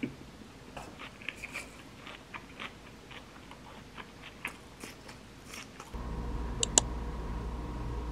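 Close-up eating sounds: scattered crisp crunches and chewing as a mouthful of salad pasta with lettuce is eaten. About six seconds in, this gives way to a louder steady low hum, with a sharp double click shortly after.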